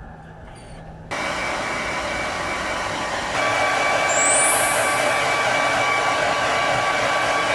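Blow dryer switched on about a second in, running with a steady rush of air and a whine. It steps up louder around three seconds in, and a high whine rises in pitch and then holds.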